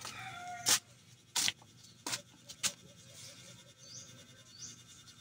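Four sharp clicks, roughly two-thirds of a second apart, as a thin metal wire is worked by hand into a rubber flip-flop sole. A rooster's crow trails off at the very start, and small birds chirp near the end.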